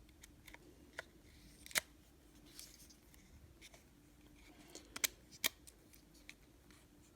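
Faint scattered clicks and taps of small plastic and metal model parts being handled, with a few sharper clicks about two, five and five and a half seconds in.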